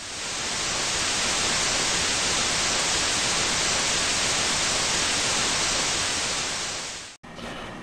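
Steady static hiss like an untuned TV, swelling in over the first second, then fading and cutting off about seven seconds in.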